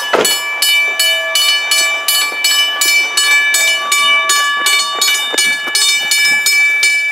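Old-school railroad crossing bell ringing in a steady rapid rhythm, about three strikes a second, its tone ringing on between strikes. A single loud thump sounds just after the start.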